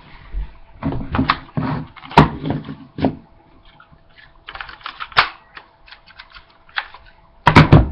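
Irregular clicks and knocks of hard objects being handled, in small clusters, the loudest about two seconds in and again near the end.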